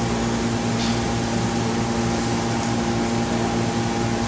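Steady machine hum made of several even tones over a faint hiss, unchanging throughout.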